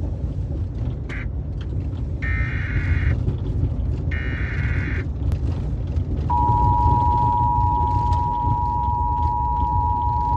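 Emergency Alert System warning tones. Three buzzing data bursts of the SAME header come first, then about six seconds in the steady two-tone attention signal starts and holds. A steady low rumble of background noise runs underneath.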